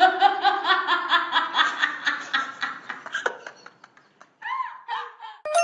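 A person laughing in quick rhythmic bursts, about five a second, that trail off over a few seconds.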